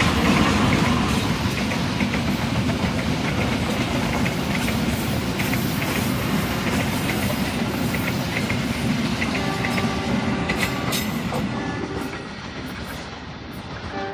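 Passenger train coaches rolling past close by, loud and steady, with wheels clicking over the rail joints; the noise eases near the end.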